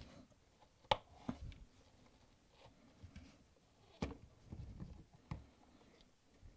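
Plastic clicks and knocks as a Bosch dishwasher drain pump is pressed off its locking tab, twisted in its mount and pulled free of the sump. Sharp clicks come about a second in and at about four seconds, with a few softer ones and faint handling rustle between.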